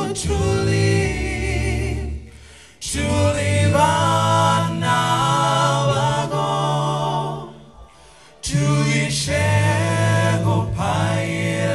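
Male a cappella group singing a gospel song into microphones, several voices together with no instruments, in three phrases broken by two brief pauses.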